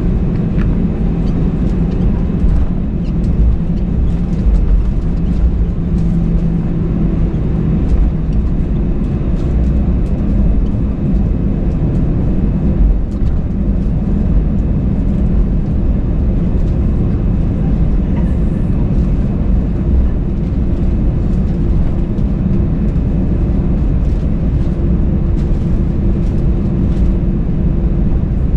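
Airbus A320 cabin noise: a steady, loud low rumble of the engines and airframe under a constant hum, with faint light ticks and rattles.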